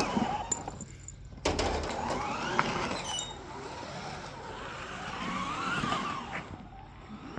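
Toy car's electric drive motor whining while driving over rough ground, its pitch rising and falling. It drops away about a second in and comes back suddenly half a second later.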